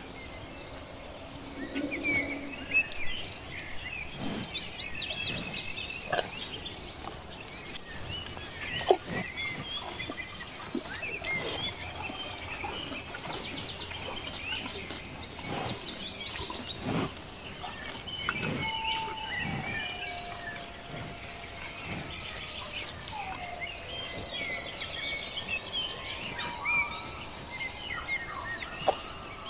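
Outdoor ambience of many small birds chirping and calling throughout, with a few lower whistled calls that fall in pitch and scattered soft knocks.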